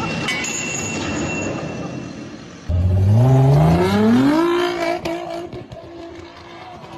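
A sports car's engine comes in loud and accelerates hard, its pitch climbing steadily for about two seconds, then holding briefly before fading as the car pulls away. Before it, a noisy jumble of sound.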